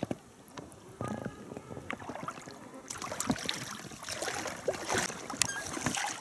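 Irregular clicks, knocks and light water splashing in a small boat drifting on a river: gear and hull being handled. The sounds get busier about three seconds in.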